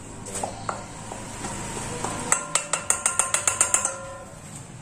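Stainless steel mixing bowl knocked about a dozen times in quick succession, ringing with each knock, to shake the last flour out into another bowl. Before the knocking comes a soft hiss of flour sliding out.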